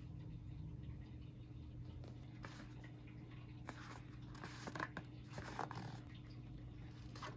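Light scraping and rustling of a paperboard soap box handled and turned over in the hands: a few short scuffs starting about two and a half seconds in, the strongest near the middle.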